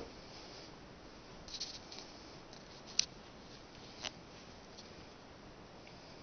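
Handling noise from a handheld camera: faint room hiss with a few light rustles, then two short sharp clicks about three and four seconds in.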